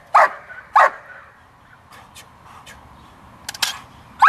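German Shepherd Dog barking at the helper in the hide, the bark-and-hold at the end of a blind search. Two sharp barks come near the start, then a pause of about three seconds, and the barking resumes at the end.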